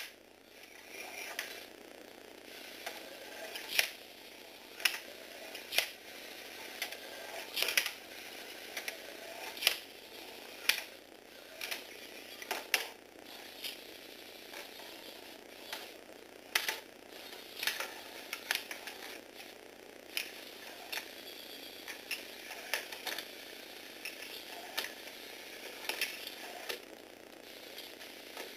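Motorised Lego Technic walking robot clattering along: sharp plastic clacks about once a second as its legs step, over the steady whir of its small geared motor.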